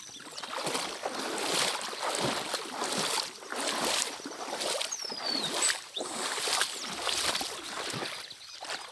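Footsteps wading through shin-deep floodwater in rubber boots, the water sloshing and swishing with each stride, about one stride a second.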